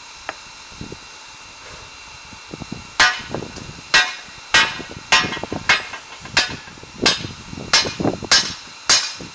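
Hammer blows on a red-hot steel sword blade lying on a round steel block anvil, forging the blade. About ten sharp metallic strikes start about three seconds in and come at roughly two a second.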